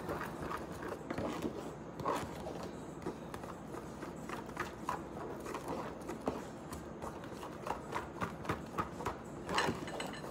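A metal spoon stirring thick pancake batter in a plastic container, with irregular clicks and taps of the spoon against the container's sides that come thicker and more regular in the second half.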